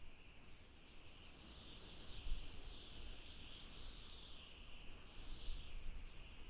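Wind blowing in gusts: a high hiss that slowly rises and falls in pitch over a low rumble that swells and fades.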